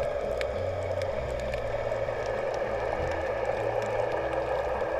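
Ambient background music: a low bass line stepping to a new note every second or so under a steady hissing wash, with faint scattered clicks.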